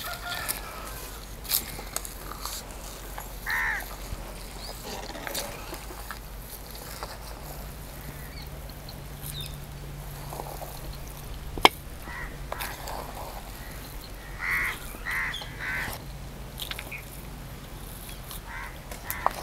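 Crows cawing several times in short calls, over the scraping of a spoon working chutney in a stone mortar and bowl, with one sharp tap a little past halfway.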